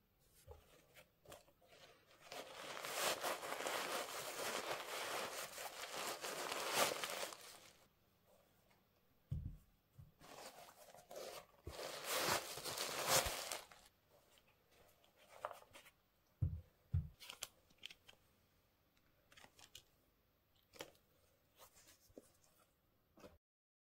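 Paper packaging being handled and unwrapped, in two long stretches of rustling and crinkling with a few soft thumps in between.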